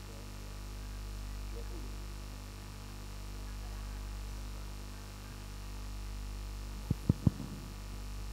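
Steady electrical mains hum through a sound system, with three quick thumps of a handheld microphone being handled about seven seconds in.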